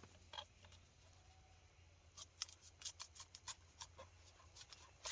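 Small pen knife cutting an onion on a little chopping board: a quick irregular run of light, crisp clicks and taps in the middle, with a louder click near the end.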